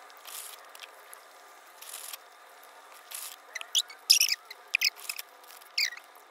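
Fast-food bag and food wrappers rustling and crinkling in short, irregular bursts as they are handled, the sharpest crinkles coming in the second half.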